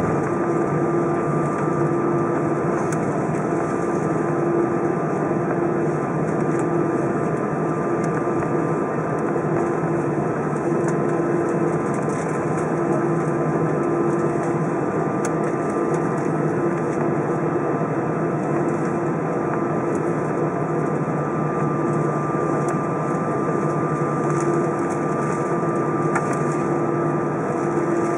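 Airbus A320 jet engines running at taxi power, heard inside the cabin over the wing: a steady drone and rush with a thin, steady whine and a lower hum that wavers about once a second.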